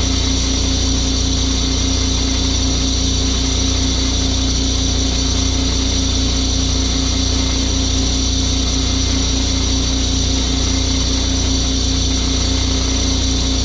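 Engine of a pressure washer running steadily at working speed, with a steady hiss over it.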